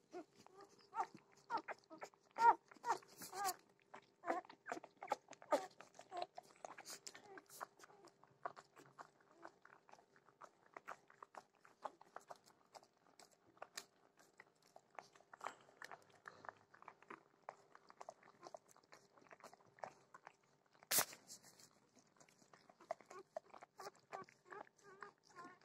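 Newborn pointer puppies squeaking and whimpering in many short, high calls while nursing. There is a sharp knock about 21 seconds in.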